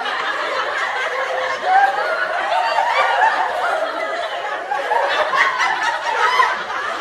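A large group of people laughing together, many voices overlapping; it cuts off abruptly at the end.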